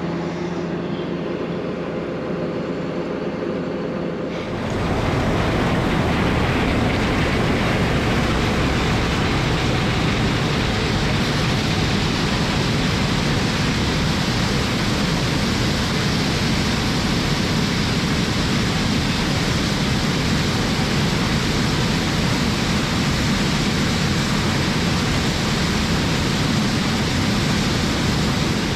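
Tractor engine running steadily, then about four seconds in a louder, even rushing noise takes over and holds steady.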